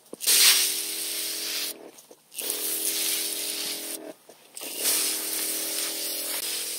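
Garden sprayer wand spraying liquid fertilizer onto soil in three bursts of about a second and a half each: a hissing spray with a steady hum under it, cut off between bursts.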